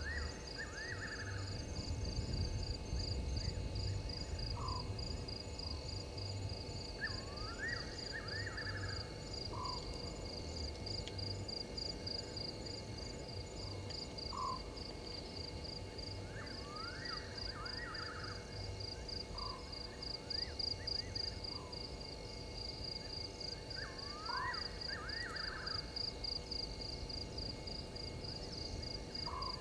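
Night bush ambience: a steady, fast-pulsing chorus of crickets, with short clusters of rising chirps from another night animal repeating about every eight seconds and single short notes between them. A low rustling noise is loudest during the first few seconds.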